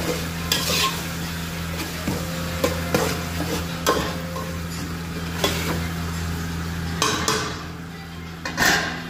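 Metal ladle stirring and scraping tomato curry around an aluminium pot, with short scrapes and knocks against the pot roughly every second and a louder knock near the end, over sizzling oil and a steady low hum.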